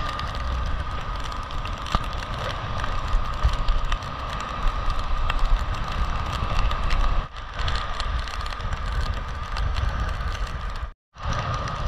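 Motorcycle riding noise: wind buffeting the microphone over the motorcycle's running and tyres on a wet road, steady throughout. The sound drops out completely for a moment near the end.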